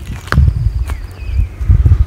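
A hiker's footsteps on a woodland path thickly covered in dry fallen leaves: an uneven run of low thuds with the rustle of leaves at each step.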